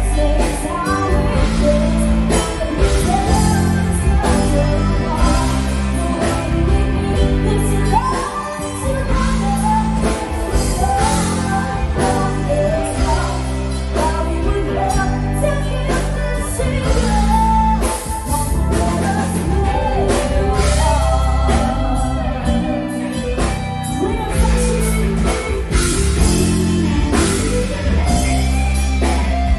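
Rock song with a lead singer over a band, with heavy bass notes changing in blocks.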